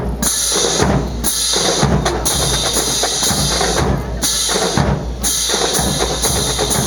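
Marching drum corps playing snare and bass drums in a steady, driving rhythm.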